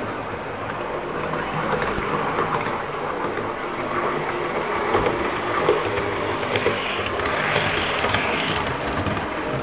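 Model electric trains running on the layout: a steady whirring of small motors and wheels on the track, with a few sharp clicks. It grows louder and brighter near the end as a second train passes close by.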